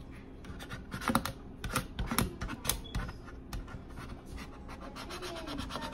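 Plastic decal scraper rubbing quickly back and forth over transfer tape on a clear water bottle, a fast run of scratchy strokes, pressing a vinyl decal onto the bottle. A few louder knocks sound about 1 and 2 seconds in.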